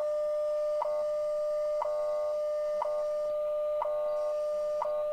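WWV time-signal broadcast received in AM on a Malahit-DSP SDR receiver: a steady audio tone broken by a short tick once every second, the station's seconds pulses, over a faint static hiss.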